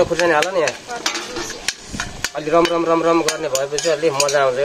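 A metal ladle stirs food frying in a wok, scraping and clicking against the pan over a steady sizzle. A long, wavering, voice-like call comes in near the start and again through the second half, as loud as the stirring.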